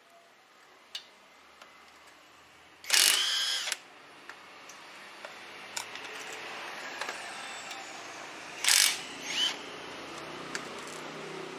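A 14 mm socket tool loosening brake caliper bolts. There are two short, loud bursts of tool noise, one about three seconds in and another near nine seconds, with scattered light clicks of metal between them.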